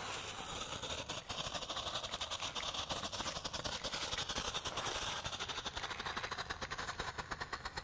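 A ground-spinner firework burning inside a cardboard box of torpedo-tube snap poppers: a steady hiss of spraying sparks with a rapid, continuous crackle.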